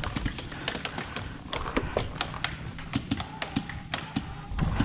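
Paintball markers firing across the field: scattered quick sharp pops in irregular runs, some closer and louder than others.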